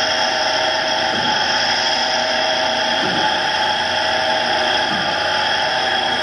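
Reform AR102 Type 6 knife grinder running: a loud, steady mechanical whine made of several high pitched tones, unchanging throughout.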